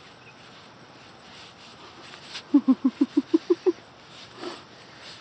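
A puppy's paws scratching and digging in loose sand. About halfway through, a voice gives a quick run of about eight short calls, rising slightly in pitch, which are the loudest sound.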